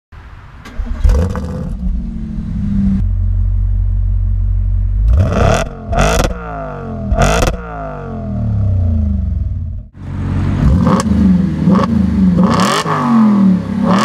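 Audi RS 5's 4.2-litre V8 with a Capristo exhaust starting up about a second in and idling, then blipped hard with several loud exhaust pops and crackles as the revs fall. After a cut near the end it gives repeated quick revs with the exhaust valves open.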